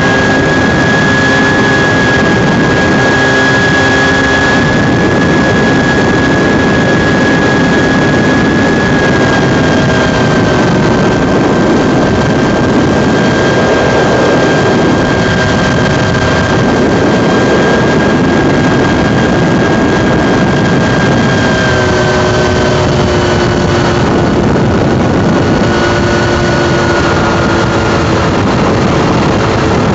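Ultralight aircraft engine and propeller running at a steady cruise drone, mixed with rushing air in an open cockpit. The drone's pitch drops slightly about two-thirds of the way through and again near the end, as if the throttle is eased back.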